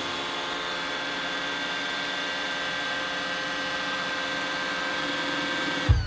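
Robot vacuum (iRobot Roomba 960) running, a steady motor whir over a hiss that holds an even pitch and level throughout.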